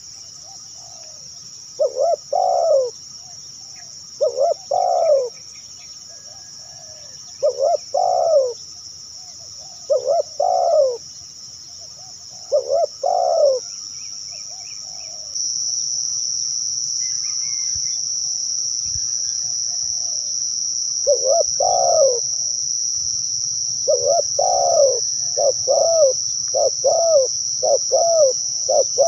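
Spotted dove (tekukur) cooing: a coo phrase every two to three seconds, a pause midway, then a quicker run of coos near the end. A steady high insect drone runs underneath and grows louder about halfway through.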